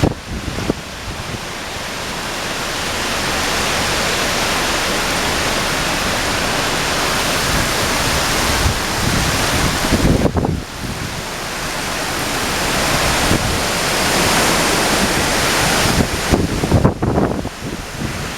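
Heavy rain and strong gusting wind of an approaching hurricane: a steady loud hiss of rain, with gusts buffeting the microphone about ten seconds in and again near the end.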